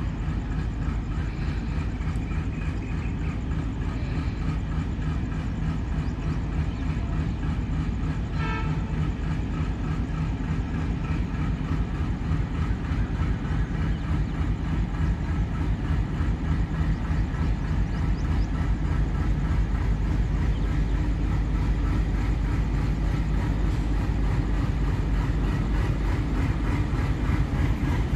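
Express train running, heard aboard an ICF passenger coach hauled by a WDG3A ALCO diesel locomotive: a steady low rumble of wheels on rails and engine that slowly grows louder. A brief high tone sounds about eight seconds in.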